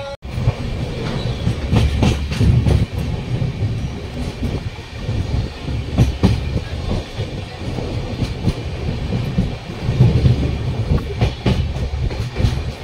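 Neelachal Express passenger train running on the track: a steady low rumble with irregular sharp clacks from the wheels.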